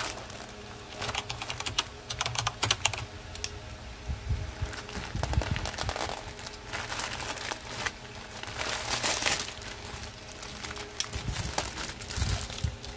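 Plastic courier mailer being crumpled and torn open by hand: irregular crinkling and crackling in bunches of sharp rustles.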